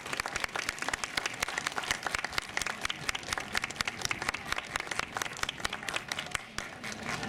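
Audience applauding: many hands clapping in a dense, uneven patter.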